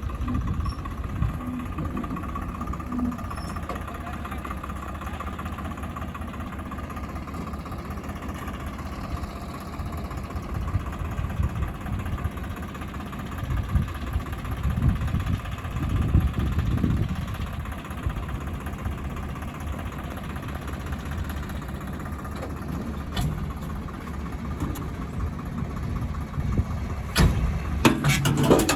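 Diesel engines of a JCB 3DX backhoe loader and farm tractors running steadily. The engine note swells louder a couple of times midway, and a few sharp knocks come near the end.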